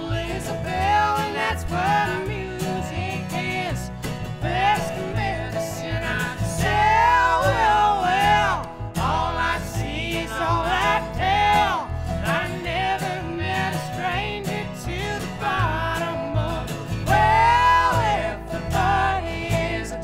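Acoustic string band performing live: a woman singing lead with a man singing harmony, over acoustic guitar and upright bass.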